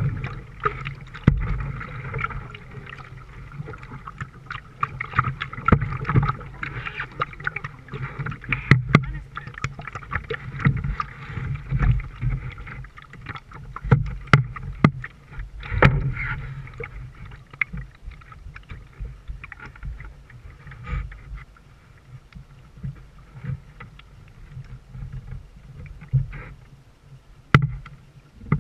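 Canoe being paddled on a river: a wooden paddle dipping and pulling through the water, with water splashing and lapping along the hull. Irregular sharp clicks and knocks run through it, one louder click near the end.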